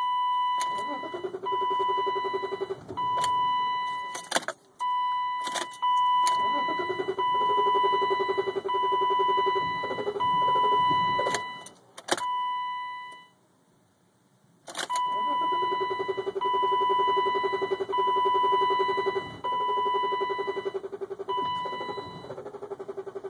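Starter cranking a 1995 BMW 325i's inline-six in repeated bursts with a steady high whine, the engine turning over but not catching. This is the car's hard-start fault: it cranks on and on without firing. Sharp clicks come between bursts, and there is a short pause about thirteen seconds in before the cranking resumes.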